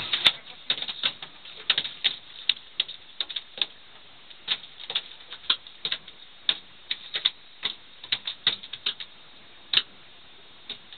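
Irregular sharp clicks, two or three a second, thinning out over the last couple of seconds.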